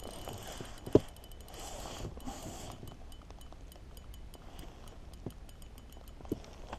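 Spinning reel ticking in a string of light metallic clicks while a hooked fish is being played. There is a sharp knock about a second in and a couple of softer knocks near the end.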